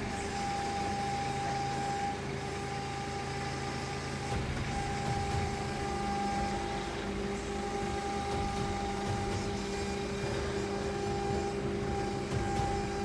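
Electric air compressor running steadily, with a steady whine over its hum. The compressor has a leaking cylinder head gasket and is slow to build pressure.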